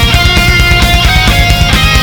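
Heavy metal music with guitars and a fast, driving beat.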